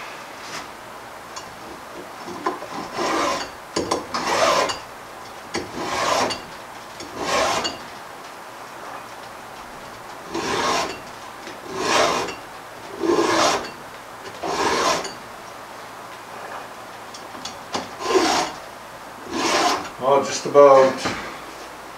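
A file sharpening a chainsaw chain by hand, rasping in even strokes about one every second and a half, in groups of mostly four with pauses between them. Near the end there is a brief, louder sound of another kind.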